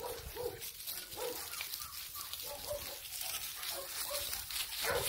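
Dogs barking over and over in short, rapid calls.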